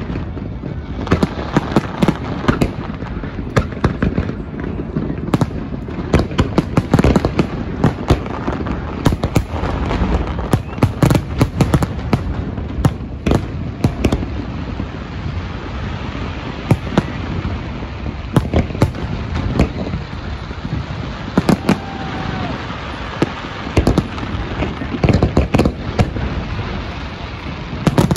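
Aerial fireworks finale barrage: shells bursting in rapid, overlapping booms and crackles, with no letup between reports.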